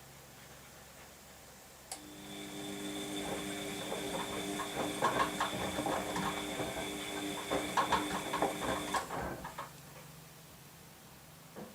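Washing machine in its wash cycle: after a click about two seconds in, the drum motor runs with a steady whine for about seven seconds while the tumbling load knocks and clatters irregularly, then stops. A single click near the end.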